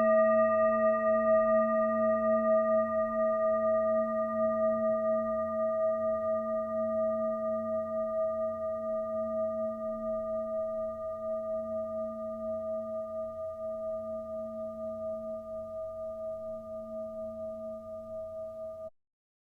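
Singing bowl, struck just before, ringing out with a slow wavering pulse and slowly fading, then cut off abruptly near the end.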